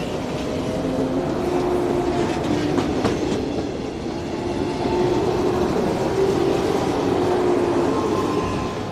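JR 115 series 300-subseries electric train pulling away from the platform and gathering speed as it runs close past. Its motors and gears whine in several steady tones over the rumble of the wheels, with a few sharp clicks about three seconds in.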